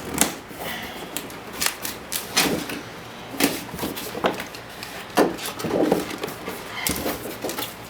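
A drone's retail box being handled and opened, with scattered clicks, taps and crinkles of packaging.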